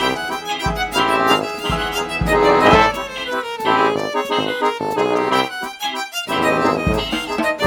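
Background music: a bright, accordion-like melody over a steady beat, with a short break about six seconds in.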